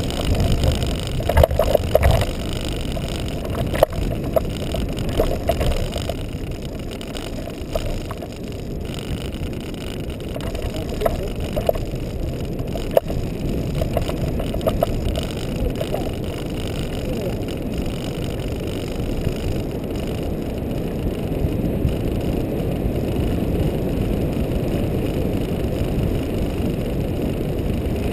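Kite buggy rolling fast across firm beach sand on balloon tyres, a steady low rush of wind and rolling noise on the buggy-mounted camera's microphone, with scattered short knocks in the first half.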